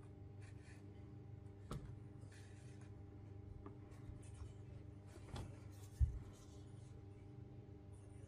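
Faint rubbing and scratching of a sewing needle and yarn being drawn through the stitches of a stuffed crocheted toy, over a steady low hum. There are a few light taps and a soft low thump about six seconds in.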